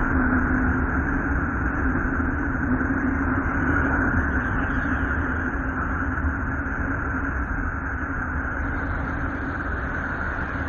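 Voyager spacecraft plasma wave recordings from Uranus, played as audio: a steady rushing hiss over a low rumble, with a held low hum and a brighter hum higher up. It eases slowly, and a thin higher hiss joins near the end.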